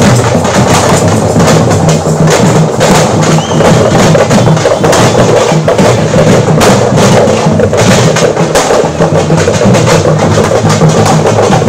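Loud, drum-led music: fast, dense drumbeats over a held low drone, going on without a break.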